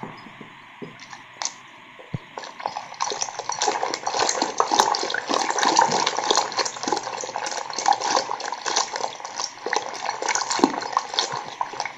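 Wooden hand churn twirled in a steel bowl of cream, buttermilk and water, the liquid sloshing and splashing against the bowl. The churning picks up about three seconds in to a rapid, busy splashing. The butter has already separated and floats in lumps.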